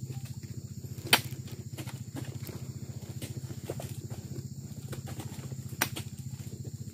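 Small truck's engine idling steadily with a fast, even pulse. Two sharp thuds, about a second in and near the end, as oil palm fruit bunches are heaved up onto its loaded bed.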